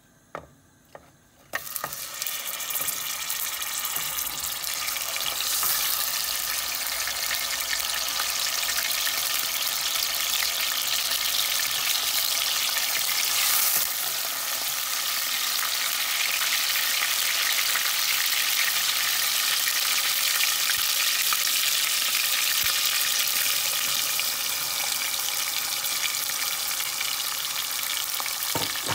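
Hot oil in a cooking pot sizzling and crackling as butter and bay leaves fry in it. After two small knocks, the sizzle starts suddenly about a second and a half in, as the butter goes into the oil, and then stays steady.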